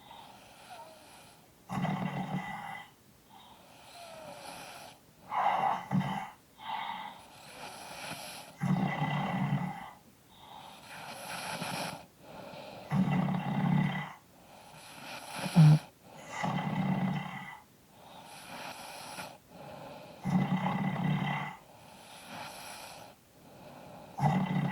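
Two people snoring at the same time, their snores overlapping and alternating: louder snores every three to four seconds with softer ones between, and one short, sharper snore a little past halfway.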